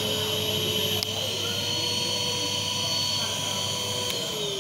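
Numatic Henry Xtra vacuum cleaner's motor running with a steady whine, switched to its high speed setting with a click about a second in, the pitch then rising a little. Near the end another click, and the motor winds down with a steadily falling whine.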